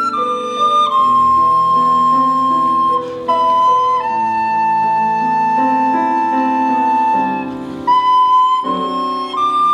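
Soprano recorder and grand piano playing together: the recorder holds a few long notes, stepping down in pitch and rising again near the end, over the piano's chords.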